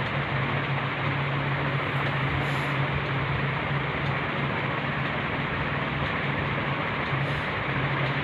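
An electric fan running: a steady hiss with a constant low hum underneath.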